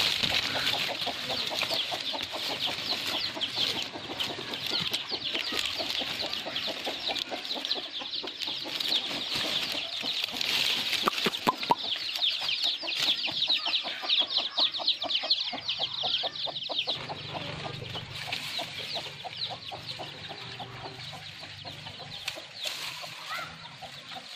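Chickens clucking, with a dense run of rapid high chirping behind them that thins out after about two-thirds of the way through.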